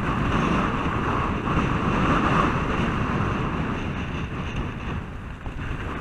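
Wind rumbling on a helmet camera's microphone and skis hissing over packed, groomed snow during a downhill run, easing off after about four seconds as the skier slows.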